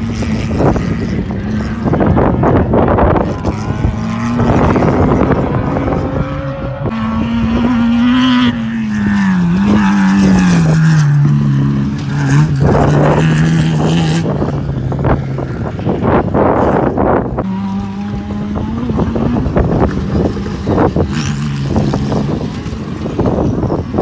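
Off-road race car's engine running hard as it drives along the track, its note rising and falling through the gears. Wind buffets the microphone.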